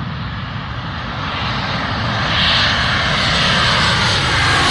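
Engines of a low-flying airliner passing close overhead. A steady roar grows louder about two seconds in, with a faint falling whine.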